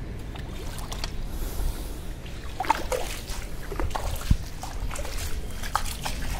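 Shallow standing water on a flooded tiled roof terrace, trickling with a few small, scattered splashes.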